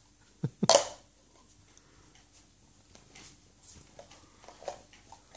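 A baby's two short, sharp vocal sounds, a quick rising grunt then a louder breathy squeal, about half a second in, followed by faint small knocks of plastic toys being handled.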